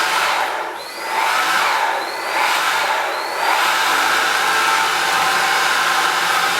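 Xiaomi cordless vacuum cleaner running while vacuuming the floor. Its sound dips and comes back up with a short rising whine about three times in the first few seconds, then runs steadily.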